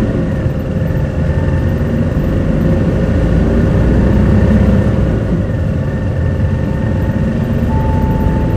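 Interior sound of a QKG-KV290N1 city bus running on its route: a steady low engine and road drone with a constant whine above it, swelling slightly midway. A clear steady high tone comes in near the end.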